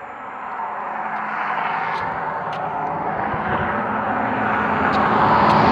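A passing vehicle approaching, its noise growing steadily louder throughout.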